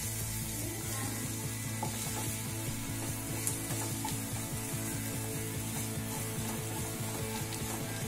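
Sliced onions, green chillies and ground spices sizzling in a non-stick frying pan while a spatula stirs and scrapes them, making quick, irregular scraping clicks. A steady low tone runs underneath.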